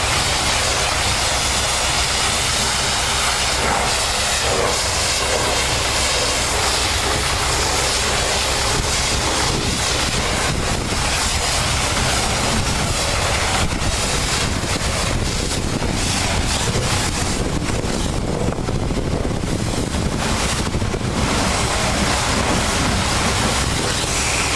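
Pressure-washer wand spraying a semi tractor's cab and wheels: a steady hiss of spray over the low, steady run of an engine. The hiss eases briefly about three-quarters of the way through.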